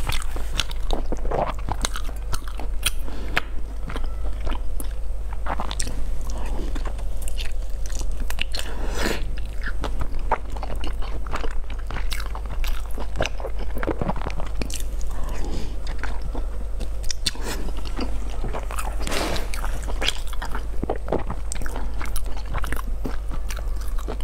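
Close-miked eating sounds: chewing and biting into a cooked whole squid, with frequent sharp clicks and smacks of the mouth throughout, over a steady low hum.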